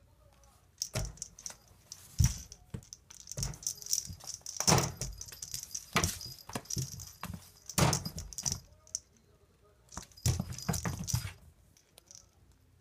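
A five-month-old kitten playing wildly inside a cardboard box under a wire grid panel: irregular bursts of scratching, rustling and knocking, with metallic rattling and jingling. The bursts start about a second in and stop about eleven seconds in.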